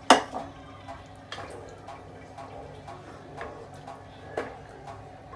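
A sharp knock at the very start, then scattered light taps and scrapes of a wooden spoon stirring watery curry in a cooking pot.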